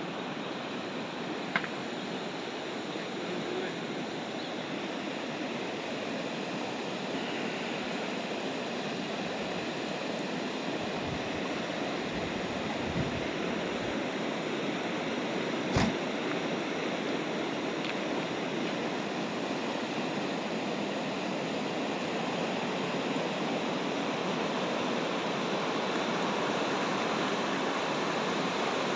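Flowing water rushing steadily, a continuous wash of sound. A sharp click cuts through about a second and a half in, and a louder knock about halfway through.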